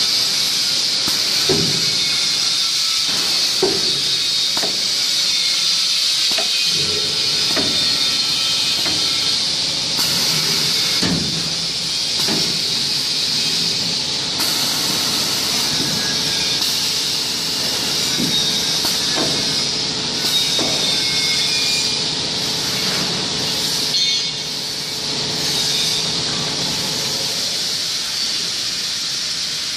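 Shrink-wrapping machine under manual testing: a steady hiss with irregular knocks and clicks from its moving parts.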